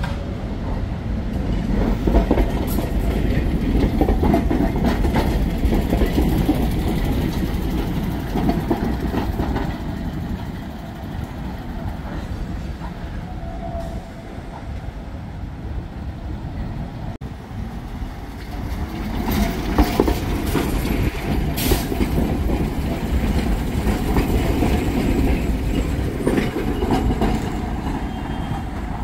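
Tram running on its rails: a steady rumble of wheels and running gear that eases off somewhat midway, then builds again, with a few sharp clicks in the second half.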